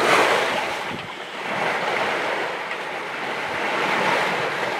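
Sea water rushing and splashing along the hull of a 37 ft sailing yacht under sail through choppy water, with wind buffeting the microphone. The rush swells and eases every couple of seconds.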